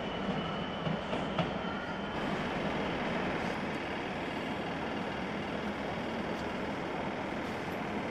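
Diesel train passing on the tracks: a steady rumble of engine and wheels on rails, with a few clicks in the first second and a half.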